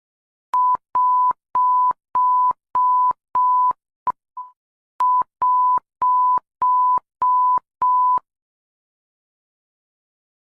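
Electronic alarm beeps at one steady pitch, about thirteen of them at a brisk, even pace of nearly two a second. Around the middle the pattern stutters into a clipped blip and a fading tone, then a short gap, before the beeps resume.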